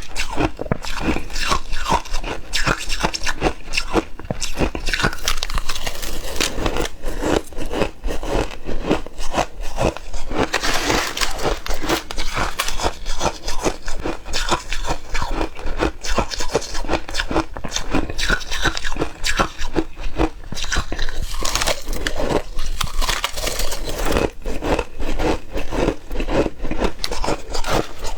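Ice being bitten and chewed close to the microphone: a dense, continuous run of sharp crunches.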